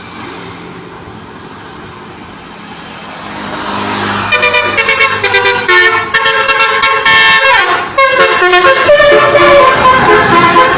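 A vehicle approaching, then from about four seconds a basuri (telolet-style) multi-tone musical horn playing a fast-changing tune, with one falling glide partway through.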